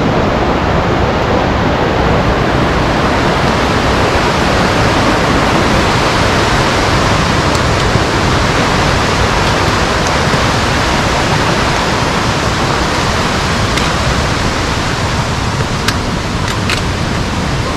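Steady, loud rush of a mountain stream or waterfall, with a few faint clicks near the end.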